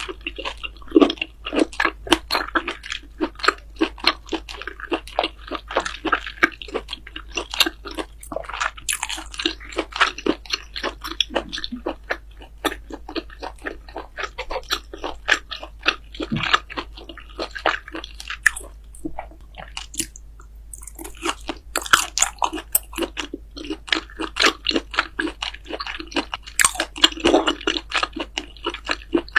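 Loud, close-up crunchy chewing and biting of food, a rapid run of crackling crunches that eases off briefly about two-thirds of the way through before picking up again.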